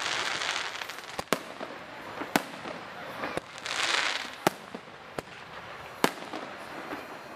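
Aerial fireworks shells bursting overhead, a string of about six sharp bangs roughly a second apart. Twice the bangs are joined by a spell of dense crackling hiss from glittering crackle stars: at the start, and again around the middle.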